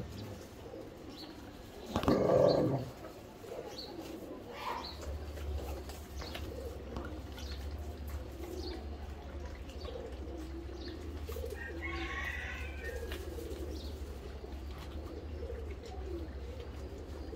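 Pigeons cooing in low, repeated coos. A loud sound lasting about a second comes about two seconds in, and a steady low hum starts about five seconds in.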